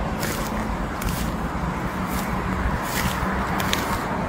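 Steady outdoor background noise with a faint low hum, and several short rustles or clicks from a phone being handled as it pans around.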